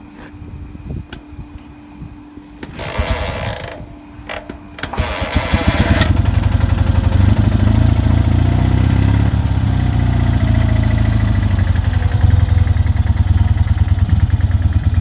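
Cold start of a 1969 BMW R60US's 600 cc air-cooled flat-twin engine after sitting overnight. It is turned over twice before it catches about five seconds in, then settles into a steady, even idle.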